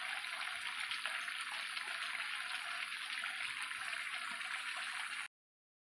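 Chicken pieces in spice paste sizzling in a wok: a steady, even hiss that cuts off suddenly about five seconds in.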